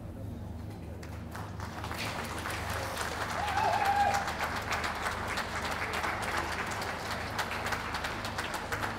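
Spectators' applause for a dog being gaited round the show ring. The clapping starts about two seconds in, swells to its loudest near the middle, and carries on to the end. A short high call rises above it near the middle.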